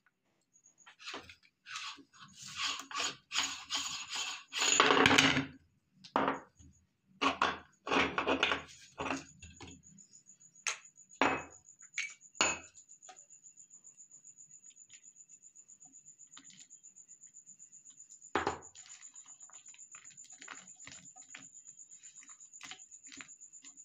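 Metal parts of a meat grinder clinking and scraping as it is taken apart, with crumbly extruded mixture rustling on a ceramic plate. Dense clattering in the first half, loudest about five seconds in, then a few single sharp clicks.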